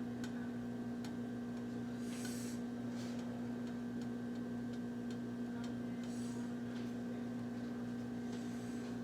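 Steady low electrical hum with faint scattered ticks, and three brief soft hissing bursts.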